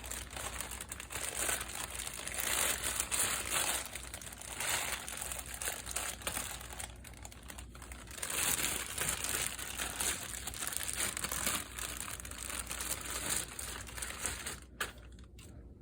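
Packaging crinkling and rustling continuously as an airbrush compressor is unwrapped and lifted out of its box, stopping near the end.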